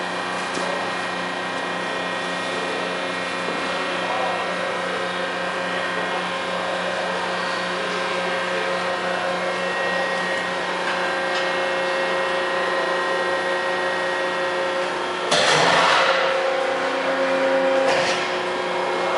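Mat thermoforming machine running with a steady hum of several tones from its motors and drives. About three-quarters of the way through comes a loud burst of hiss lasting about a second, and a shorter one follows near the end.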